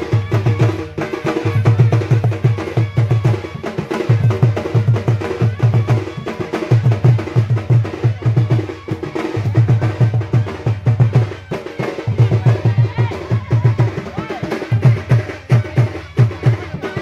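Traditional barrel drums beaten in a fast, repeating rhythm of deep strokes in short phrases. A steady held tone sounds over the drumming, and crowd noise runs underneath.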